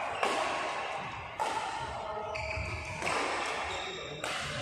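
Badminton rally: rackets striking a shuttlecock, about five sharp hits roughly a second apart, each echoing briefly in a large hall.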